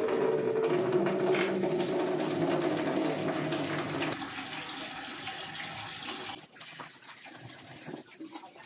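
Kitchen tap running into a sink while pak choy is rinsed under it. The running water is loudest for about four seconds, then grows quieter, and quieter again a couple of seconds later.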